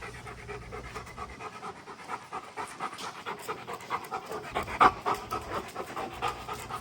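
German Shepherd panting hard and fast after play, with one louder breath about two-thirds of the way through.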